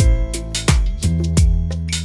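Instrumental background music: a steady drum beat of about three hits a second over held bass and chord notes.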